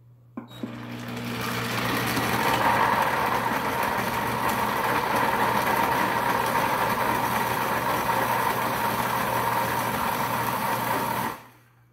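Pampered Chef Deluxe Cooking Blender crushing ice for a frozen drink: the motor starts, builds up over the first two seconds, runs steadily, then stops suddenly shortly before the end.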